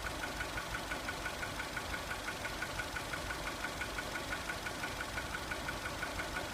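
2002 VW Polo 1.4 petrol engine idling with a quick, even ticking. It is misfiring on cylinder 4 because of a failing ignition coil pack.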